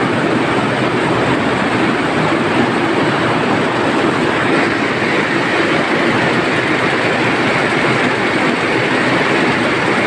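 Yisida water jet looms weaving, a loud, steady machine noise with no let-up.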